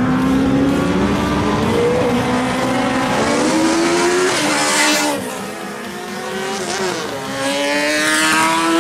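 Autocross race cars accelerating hard past on a dirt track. The engine note climbs in pitch and drops at each gear change, about four and seven seconds in. The cars swell loudest as they pass close, about five seconds in and again near the end.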